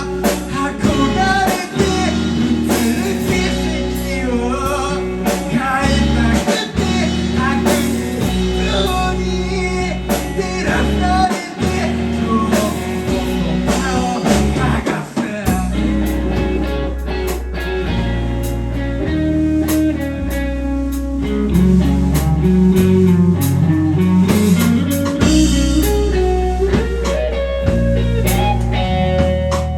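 Live band playing a song: guitar over bass and drum kit.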